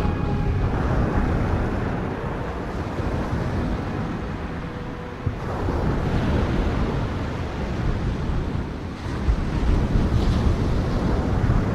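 Sea surf: waves breaking and washing up the shore in slow swells, with wind rumbling on the microphone.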